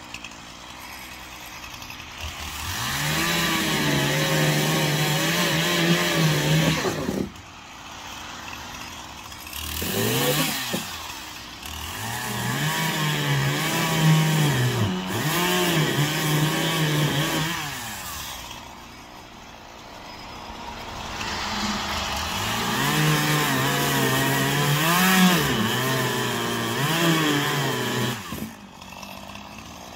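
Poulan Pro 5020 two-stroke chainsaw bucking a felled pine trunk: it idles, then runs at full throttle in three long spells, the engine pitch dipping and recovering as the chain bites into the wood, dropping back to idle between cuts.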